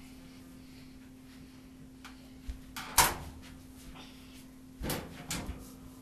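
Clunks and knocks of a clothes dryer's door and of damp laundry being handled as it goes into the dryer: a few light knocks, then a sharp knock about halfway through, and two more bumps near the end.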